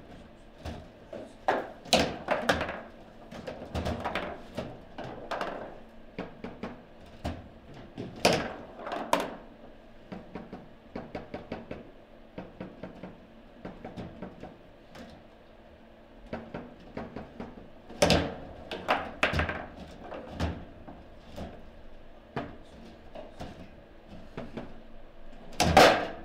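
Table football game in play: the ball and the rod-mounted players knock and clack against each other and the table walls in quick irregular strikes, with the sharpest, loudest shots about 2, 8 and 18 seconds in and just before the end.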